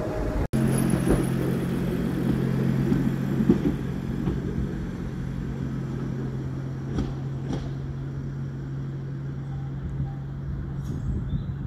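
Class 139 Parry People Mover railcar pulling away along the branch line: a steady low hum that fades slightly as it goes, with two short clicks about seven seconds in.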